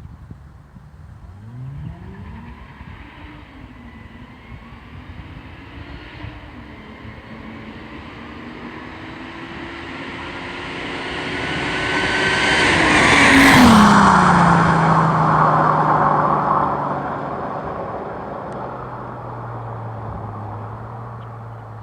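Chrysler Crossfire SRT-6's supercharged V6 accelerating, its note climbing and growing louder as the car approaches, then dropping sharply in pitch as it passes about two thirds of the way through. It fades to a low, steady drone.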